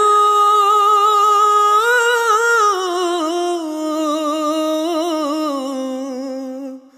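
One long sung note from the song's vocal line, held and ornamented with small wavers, stepping slowly down in pitch. It fades out near the end.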